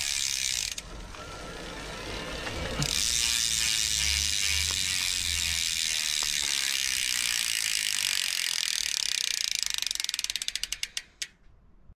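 Mountain bike rear hub freewheel ratcheting as the hand-spun rear wheel coasts. It makes a fast, continuous buzz, with a quieter break from about one to three seconds in, when the pedal is being turned. Near the end the clicks slow into single ticks as the wheel runs down and stops.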